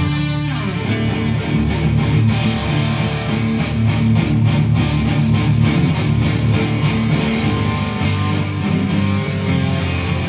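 Stratocaster-style electric guitar played in an improvised jam: a note bent and sliding down near the start, then rapid repeated picked strokes through the middle over sustained low notes.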